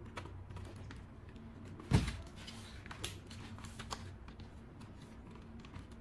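A scattered run of light clicks and taps, with one much louder knock just before two seconds in.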